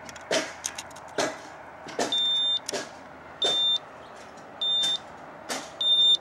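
A high-pitched electronic beep sounding four times, about once every 1.2 seconds, starting about two seconds in, over irregular short clicks and knocks.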